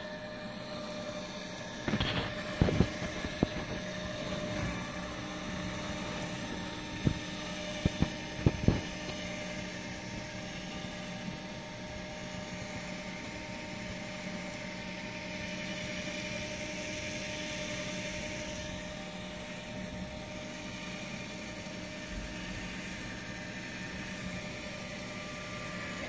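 Small DC gear motor driving a ball screw, running with a steady whine as the nut carriage travels along the screw to tip a model dump truck bed. A few sharp clicks come about two and eight seconds in, and the motor cuts off suddenly near the end.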